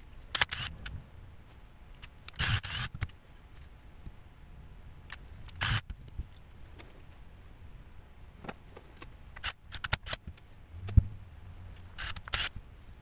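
Clicks and clinks of small metal parts and tools handled on a workbench during valve body reassembly, with a short burst of a cordless driver running in a valve body bolt near the end.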